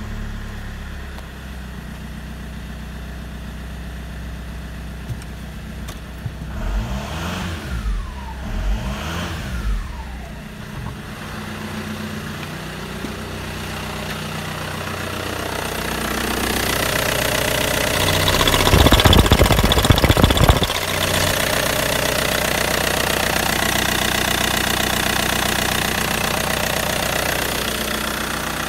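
Opel Vectra C's 2.2-litre four-cylinder Y22DTR turbodiesel running after a start: idling, revved up and back down twice a few seconds in. Later it is heard close up from the open engine bay, running steadily, with a short loud rumble in the middle.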